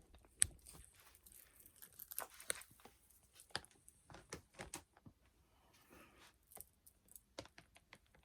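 Handling noises: rustling and crinkling with scattered sharp clicks and taps.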